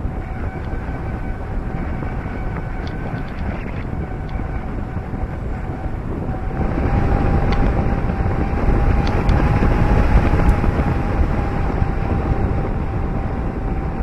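A car driving along a paved road, heard through a camera mounted outside on the roof: wind buffeting the microphone over the rumble of the tyres, with a thin steady whistle running through it. The rush grows louder about halfway through.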